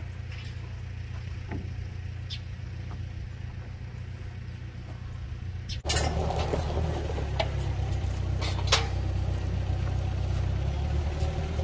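An engine running steadily at low revs, quieter at first and then louder and closer from about six seconds in, with a few sharp knocks.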